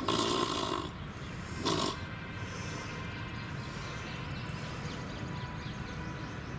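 Striped hyena giving two short, harsh breathy vocal bursts, one at the start and a shorter one about two seconds in, followed by steady background noise.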